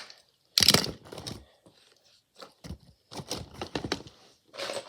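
Plastic fidget toys being handled and put away: several short bursts of rustling and clattering.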